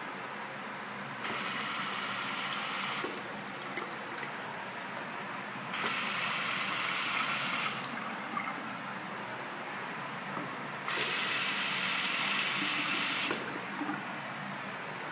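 Water from a chrome bathroom faucet running into a sink basin in three separate bursts of about two seconds each. Each burst starts and stops abruptly as the tap is turned on and off. A low steady hiss and a few faint clicks come between the bursts.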